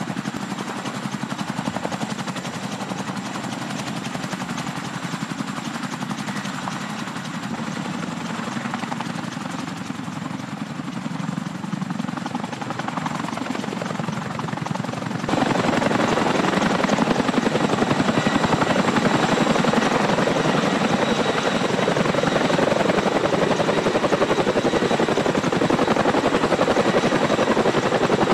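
CH-47 Chinook tandem-rotor helicopter hovering over a sling load, its twin rotors and turboshaft engines running with a steady heavy rotor noise. About halfway through, the sound jumps suddenly louder.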